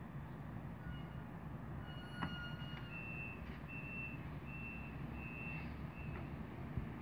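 An n-Wagen push-pull train pulls away with a low, steady rumble. From about three seconds in, a run of four or five short, high-pitched tones of about half a second each sounds over roughly three seconds.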